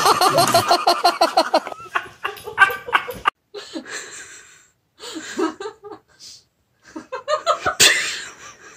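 People laughing: a hearty laugh in quick rhythmic pulses that fades out under two seconds in, then quieter snickers and giggles in short bursts, with a single sharp click near the end.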